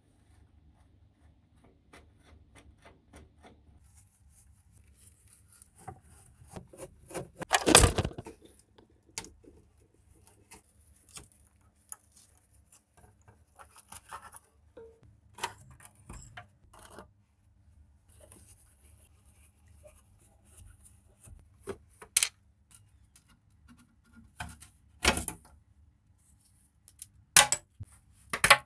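Hand-tool work on a plastic tabletop water dispenser: a screwdriver scraping at rusty screws, and plastic and metal parts clicking, rubbing and knocking as they are handled. A few louder knocks stand out, the loudest about eight seconds in.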